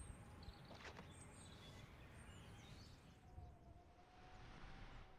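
Near silence: faint ambient room tone with a soft click about a second in.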